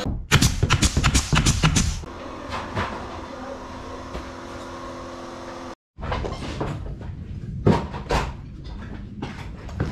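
A rapid run of hard knocks and clatters, then a steady mechanical hum; after a brief cut about six seconds in, scattered knocks resume.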